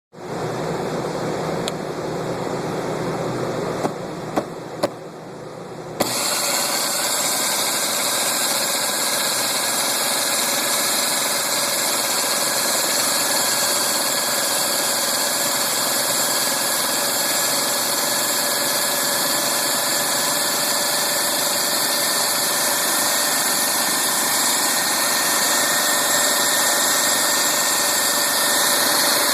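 A motor running, presented as possibly faulty. After a few sharp clicks, it gets abruptly louder about six seconds in, then runs steadily with a high whine that rises slightly.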